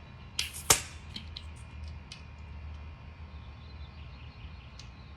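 Handling noise while finishing up with the tyre pump and wheel: a short, sharp snap with a brief hiss about half a second in, then scattered light clicks and taps.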